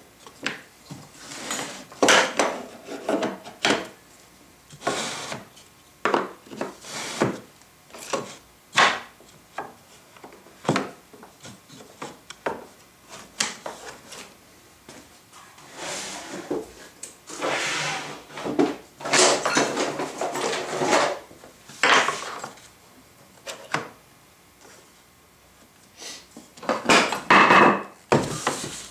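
Wooden boards being handled on a workbench: scattered knocks as they are set down, and sliding scrapes, with a louder clatter near the end as the router is brought onto the board. The router is not running.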